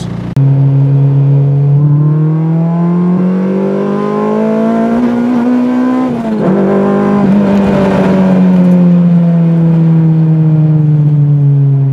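Honda K-series four-cylinder engine heard from inside the cabin during a full-throttle 3rd-to-4th gear pull. The engine note climbs steadily to near redline, drops sharply at the upshift about six seconds in, then holds and slowly eases down.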